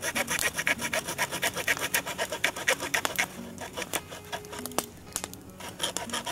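Small hand saw cutting a notch into a wooden stick: quick back-and-forth rasping strokes, several a second. The strokes slow and thin out about four seconds in, then pick up again near the end.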